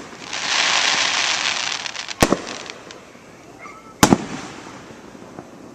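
Aerial fireworks: a crackling hiss for about a second and a half, then two sharp bangs about two seconds apart.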